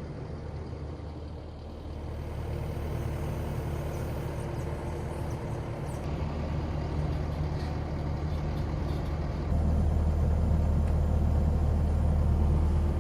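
Heavy truck engine running steadily, picking up and running louder about two thirds of the way through, as when it takes on load.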